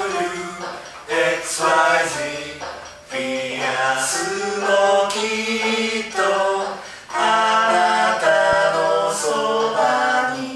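Unaccompanied singing voices, a cappella, sung in short phrases with brief pauses between them.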